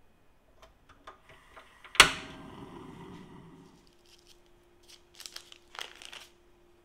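A single sharp knock about two seconds in, ringing on and fading over a second and a half. Near the end come a few crinkly rustles of parchment paper as a ball of donut dough with a hole poked through it is lifted off its paper square.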